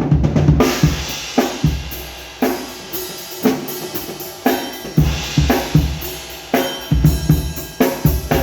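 Pearl Roadshow five-piece acoustic drum kit played: kick, snare and cymbals. Strokes come about a second apart through the middle with the cymbals ringing between them, then the playing gets busier and louder from about five seconds in.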